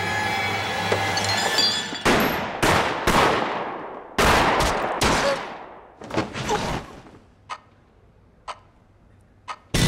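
Gunfire: after a steady rumble with held tones, a rapid run of loud shots with long echoing tails begins about two seconds in and thins out. It ends with three single sharp shots about a second apart.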